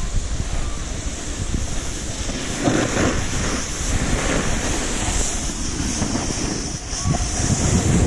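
Wind rushing over a GoPro's microphone while riding down a ski slope, mixed with the hiss and scrape of snow under the rider's board or skis, swelling louder around three seconds in and near the end.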